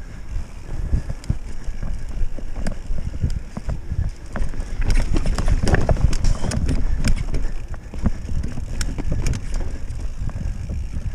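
Mountain bike rattling and knocking as it rolls over rocky singletrack: frequent sharp clicks and clunks over a low rumble, rougher and louder through the middle.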